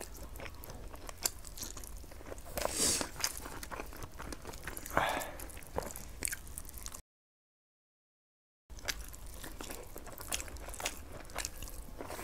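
A person biting and chewing soft fried eggs, with wet mouth sounds and small clicks. A little past halfway the sound cuts out completely for about a second and a half.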